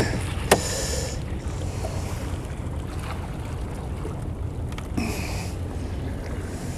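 Wind rumbling on the microphone over water around a small open boat, with a sharp knock about half a second in and two short hissing, splash-like bursts from the fish and net being handled.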